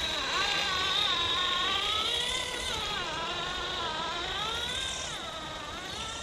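Electric motor and gearbox of a Yikong G-Wagon RC crawler whining as it crawls, the pitch rising and falling with the throttle several times.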